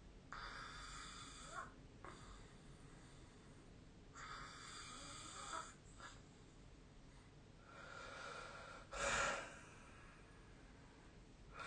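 A person snoring in sleep: three snores about four seconds apart, the last the loudest.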